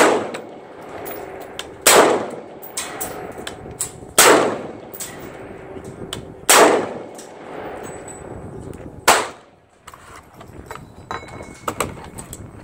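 AR-15 rifle with an integrated muzzle brake firing five single shots about two seconds apart, each a loud sharp crack with a short echo. A few lighter clicks follow near the end.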